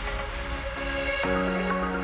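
Electronic background music with sustained chords; the chord changes about a second in.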